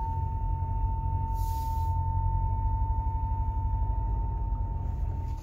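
Cabin sound of a Ford Ranger Raptor with a 2.0 bi-turbo EcoBlue diesel, a steady low rumble as it crawls the course. Over it a continuous single-pitch electronic warning tone holds for about five seconds and cuts off near the end, with a short hiss about a second and a half in.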